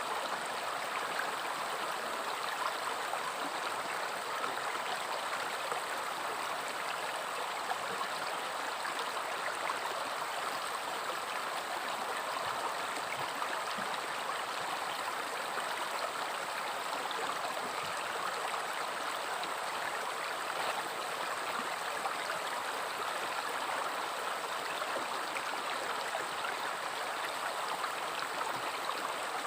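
River water flowing and gurgling over rocks, a steady, unbroken rush.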